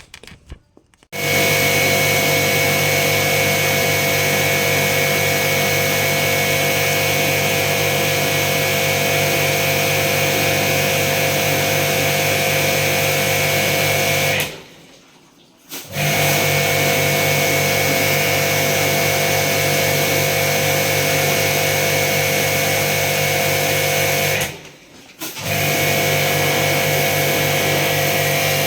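Electric pressure washer running steadily with a motor hum, cutting out twice for about a second and starting again each time.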